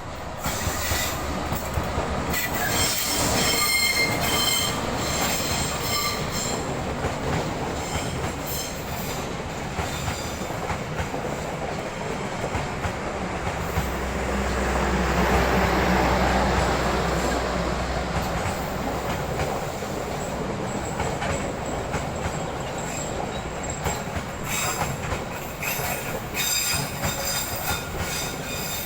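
A train running past close by, its steel wheels squealing against the rails in high ringing tones, with clickety-clack over the rail joints. Around the middle a deep steady hum swells and fades as the heaviest part of the train goes by, and the squealing returns near the end.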